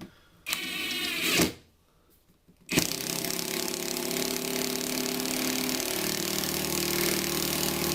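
RUYIKA cordless impact wrench with a screwdriver attachment: a short burst of the motor spinning up, then after a pause about six seconds of continuous running as it drives a screw into wood without slowing down.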